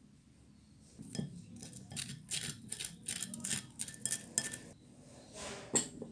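A metal spoon scraping and tapping inside a stainless steel mesh sieve as it pushes cocoa powder and flour through into a glass bowl: a run of quick scrapes and light clicks, then a longer scrape and a sharp clink near the end.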